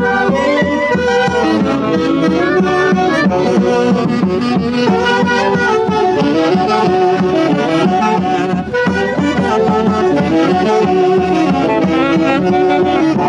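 A live Andean festival orchestra led by saxophones playing a lively traditional tune.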